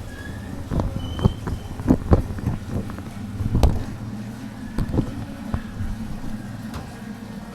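Irregular knocks and clicks of hand tools working on the motorcycle's coolant drain nut, over a low steady rumble.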